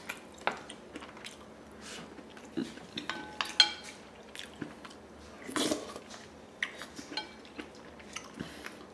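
Wooden spoon and chopsticks clicking and scraping against a ceramic bowl of braised food, with scattered light clicks and a louder ringing clink about three and a half seconds in.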